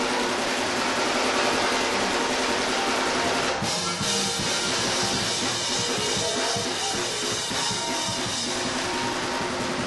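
Live church praise band playing, with a drum kit and guitar over steady held chords. The dense, full sound thins suddenly about three and a half seconds in.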